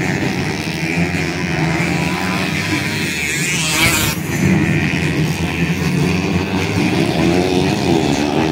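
Several standard underbone (bebek) racing motorcycles revving hard as they race over the dirt jumps of a grasstrack circuit, their engine notes rising and falling and overlapping. A short rush of noise comes about halfway through.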